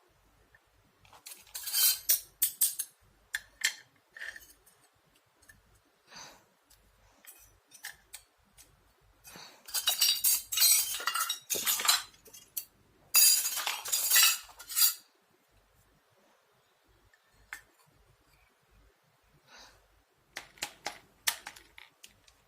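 Small toy kitchen pieces and dishes clinking and rattling against each other as they are handled, in several bursts of a second or two with quiet gaps between.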